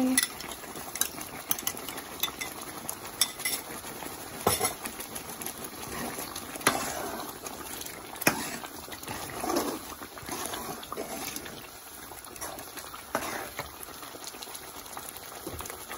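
Spoon stirring pickle into frying yogurt masala in a cooking pot, knocking and scraping against the pot with scattered sharp clinks over a soft sizzle.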